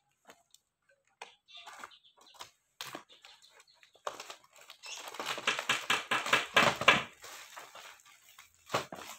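A cardboard carton being handled and turned over: scattered light taps and scrapes, then a loud, dense stretch of rustling and crinkling about halfway through, followed by a few more knocks.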